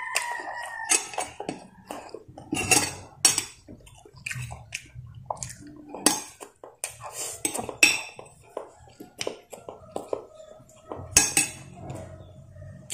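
Close-up eating sounds: a metal spoon clinking and scraping against a glass bowl of soup in irregular sharp knocks, with chewing in between.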